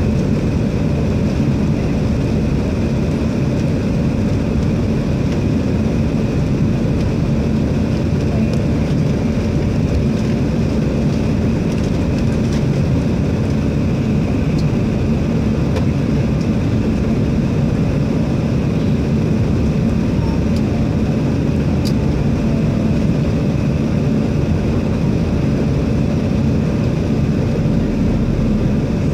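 Steady airliner cabin noise heard from inside the cabin: engine and airflow roar with a faint steady hum, unchanging throughout, as the plane descends toward landing.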